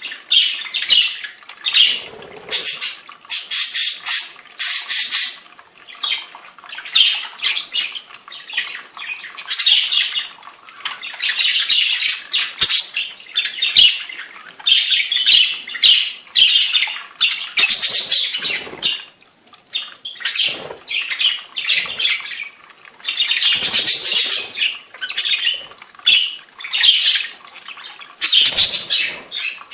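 Budgerigars chattering and squawking in quick, repeated bursts throughout.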